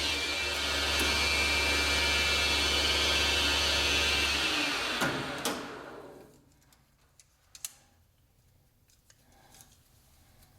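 Metal lathe running steadily, then switched off about five seconds in and spinning down to a stop, followed by a few light clicks.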